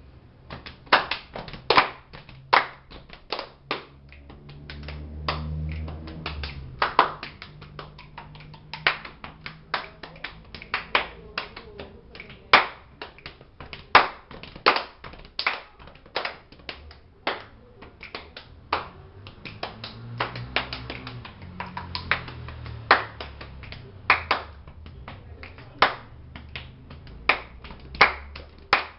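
Body percussion: hand claps, taps and finger snaps played in a rhythm, with a low sustained tone joining in twice.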